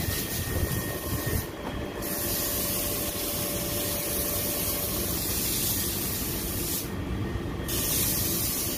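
Water spraying from a hose onto a wet tiled floor, a steady hiss that cuts back briefly twice.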